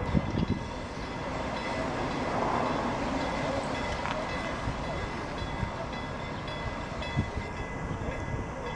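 Narrow-gauge heritage steam train moving slowly, its wooden carriages running on the rails with a steady rumble and a few knocks.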